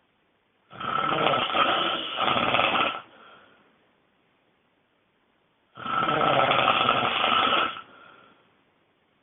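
A person snoring extremely loudly: two long snores of about two seconds each, about five seconds apart, each followed by a fainter breath.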